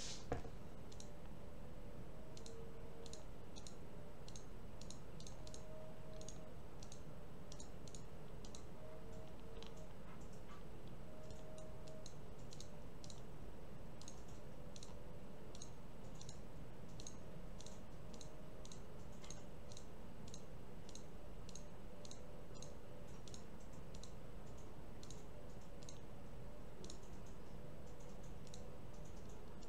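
Computer mouse clicking repeatedly, roughly one or two short clicks a second with a few pauses, over a steady low hum; one louder click right at the start.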